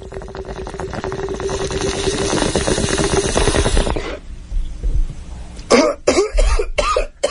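Bong hit: water bubbling and gurgling through a bong, growing louder for about four seconds, then several coughs near the end.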